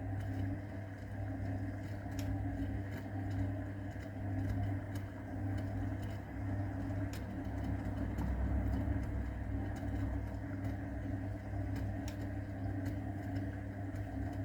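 AEG Öko-Lavamat 693 washing machine running early in a 60 °C wash: the drum motor hums steadily with light clicks, then stops abruptly near the end.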